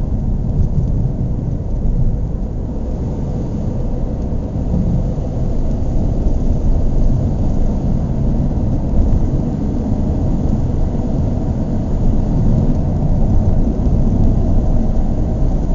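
Car engine running, its sound low and fairly steady, without clear revving.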